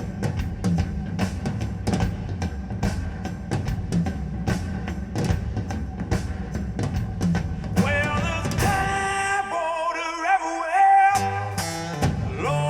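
A song played through a DOOGEHiFi HT-1 tower speaker: a bass-heavy drum beat, then about eight seconds in a singing voice comes in and the bass drops out for a few seconds before returning.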